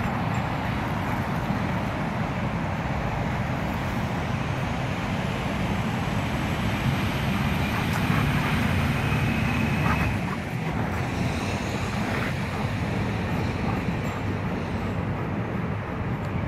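Steady rumble of distant city traffic, swelling a little about halfway through and then easing.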